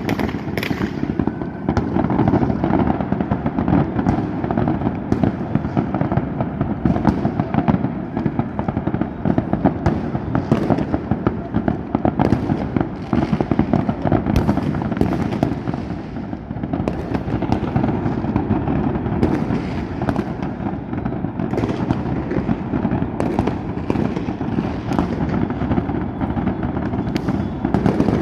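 Fireworks going off continuously: a dense, unbroken run of overlapping bangs and crackles, many at once, with sharper cracks standing out every second or so.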